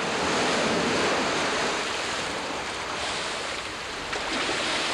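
A 1-ton syntactic foam buoyancy module bursting up through the surface of a water tank: a sudden loud splash, then water churning and sloshing as the module settles and floats.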